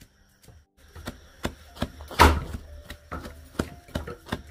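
A large knife chopping a heap of leafy greens on a chopping board: a string of sharp, uneven knocks, the loudest about two seconds in, after a brief quiet gap at the start.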